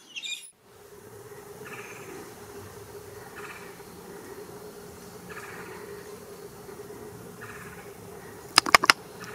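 Tropical forest ambience: a steady low drone, with a short buzzy call repeating about every two seconds. Three sharp clicks come in quick succession near the end.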